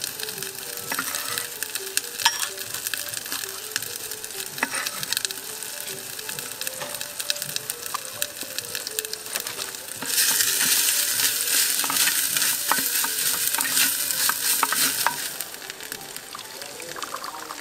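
Curry paste frying in hot oil in a clay pot, sizzling and crackling with many small pops. About ten seconds in the sizzle gets much louder for some five seconds, then falls back.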